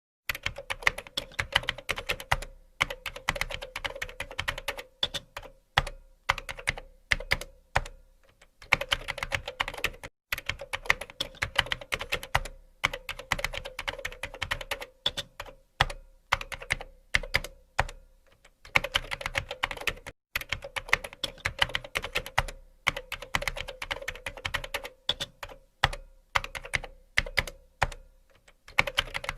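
Fast typing on a computer keyboard: quick runs of key clicks broken by short pauses every few seconds.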